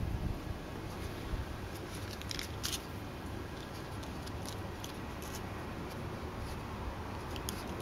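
A few short, sharp clicks and scratches over a steady low rumble: a European badger's claws on stone paving slabs as it walks about.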